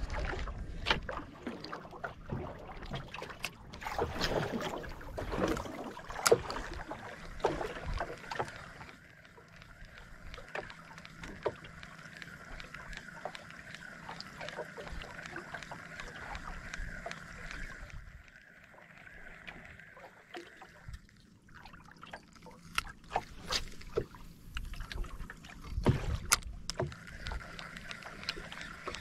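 Scattered knocks and clicks of gear being handled in a small fishing boat, with a steady high hum through the middle and again near the end.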